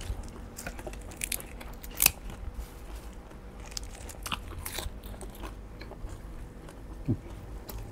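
A person chewing and crunching a mouthful of fresh, crisp phak kradon leaves, close to a clip-on microphone, with scattered small crunches. The sharpest crunch comes about two seconds in.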